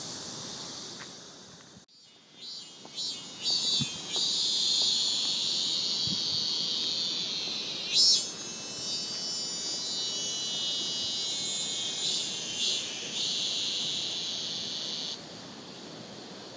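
High-pitched, steady insect chorus of crickets or cicadas. It cuts in after a brief dropout about two seconds in and falls away abruptly near the end.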